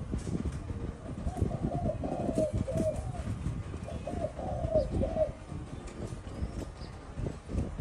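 A spotted dove cooing: two phrases of repeated low coos, one a little over a second in and another about four seconds in, over a steady low rumble.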